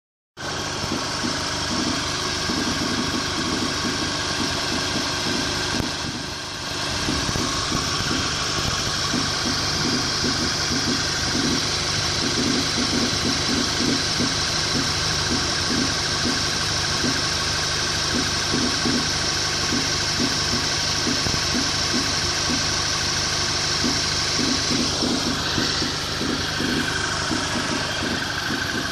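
Volkswagen Mk6 GTI's 2.0-litre turbocharged four-cylinder engine running, with a repeated knock over the steady engine noise, which the owner takes for a fault.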